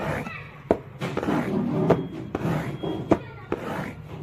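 Heart sounds imitated on a cardboard box: sharp knocks about 1.2 s apart, each followed by a rasping, rubbing whoosh. It stands for the high-pitched early diastolic murmur of aortic regurgitation.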